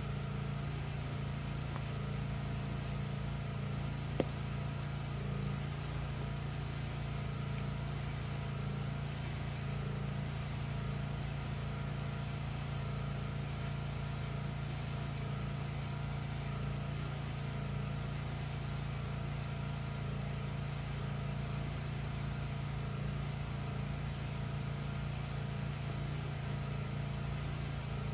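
Gasoline generator running at a steady drone, with no change in speed, and one sharp click about four seconds in.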